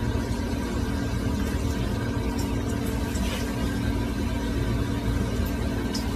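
Steady low mechanical hum that keeps an even level throughout, with a few faint constant tones riding on it.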